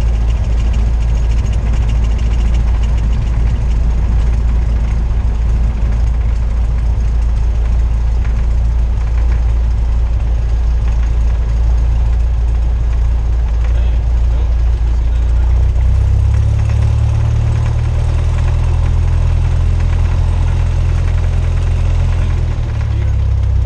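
Cessna 172R's engine and propeller droning steadily, heard inside the cockpit. About two-thirds of the way through, the deep hum grows stronger and changes tone, then settles back shortly before the end.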